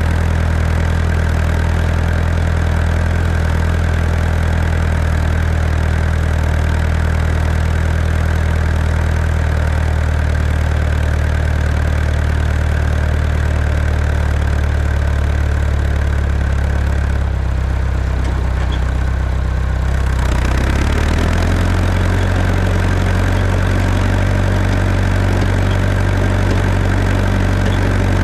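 Tractor engine running steadily while plowing compacted snow and ice. About two-thirds of the way in its pitch drops for a few seconds, then picks back up.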